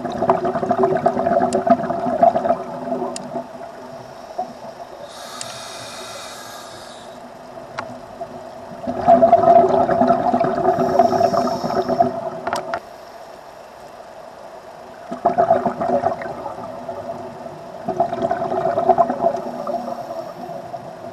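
A scuba diver breathing through a regulator, heard underwater: several breaths, each exhale a burst of rumbling, bubbling noise, with a short hissing inhale between them.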